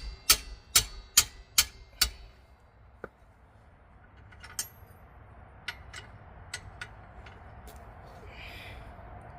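Ratchet wrench with a 17 mm socket clicking on a rear brake caliper bracket bolt: a run of sharp clicks, two to three a second, that stops about two seconds in, then a few light scattered clicks.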